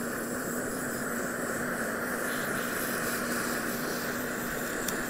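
Handheld kitchen torch flame giving a steady hiss as it is played over the sugar topping of crème brûlée to melt and caramelize it.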